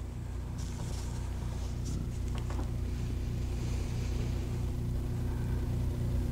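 Organ holding low, sustained chords that swell slowly louder, with a faint knock about two and a half seconds in.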